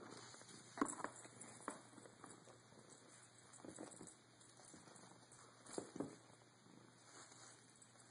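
Faint patter and soft knocks of a cat playing with a feather wand toy on carpet, the louder knocks coming about a second in and again near six seconds.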